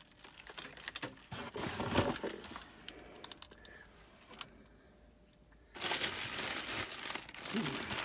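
Plastic bags crinkling and rustling as a hand rummages through them, in two spells: one from about a second in, lasting a couple of seconds, and a louder one starting about six seconds in.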